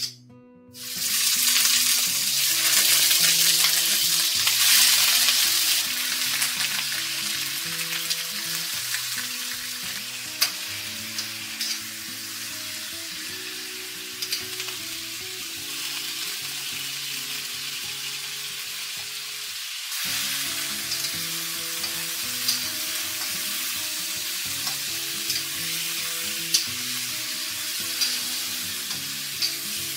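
Bone-in chicken pieces frying in hot oil in a wok. The sizzle starts loudly about a second in as the chicken goes into the oil, then settles to a steady fry while a metal spatula stirs, with a few sharp clicks of the spatula against the wok.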